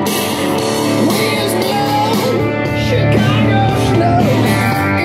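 Rock music with electric guitar playing through a Harman Kardon Bluetooth speaker whose split driver has just been sealed with synthetic sealant. It is being played as a test, and it sounds clean, without the vibration the air leak used to cause.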